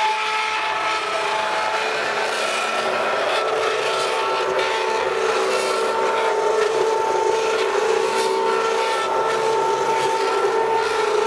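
Handheld stick blender running steadily in a crock of soap batter, its motor giving a continuous whine over the churning of the liquid. It is mixing the melted oils and lye solution toward trace.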